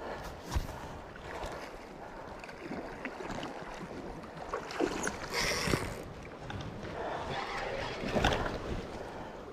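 Water lapping and splashing with wind noise on the microphone, broken by a few dull knocks, one about half a second in and one near the end.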